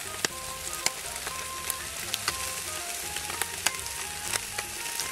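Oil-brushed whole fish sizzling on a wire grill over fruitwood charcoal, with a steady hiss and frequent sharp pops and crackles as the oil and fat spit on the heat.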